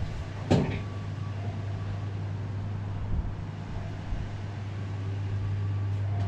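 Steady low hum inside a submarine's cramped compartment, with one sharp knock about half a second in.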